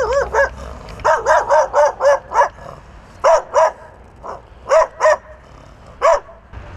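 A stray dog barking repeatedly: short, fairly high barks in quick runs of several, with brief pauses between the runs.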